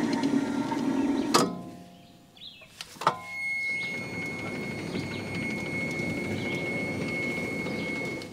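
Wood-Mizer LT35HD sawmill hydraulics running in two stretches: a steady pump drone that stops with a clunk about a second and a half in, then after a short pause another clunk and a second run carrying a high, steady whine.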